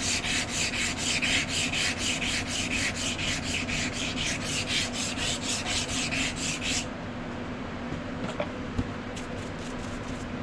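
Sandpaper rubbed by hand back and forth over a knife handle, quick even strokes about four a second, stopping about two-thirds of the way through; a few light ticks follow.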